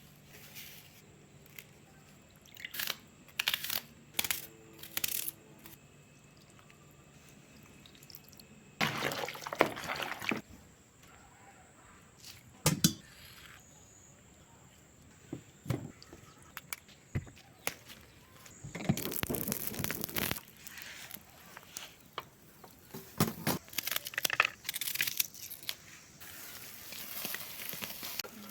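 Kitchen food-preparation sounds: scattered knocks and clatter of utensils and dishes, with two longer rustling, scraping bursts about nine and nineteen seconds in.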